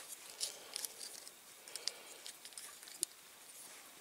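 Faint scattered clicks and rustles of small parts of a Britains Ford 6600 diecast model tractor being handled and fitted together, as the hydraulic lift lever is worked through its hole.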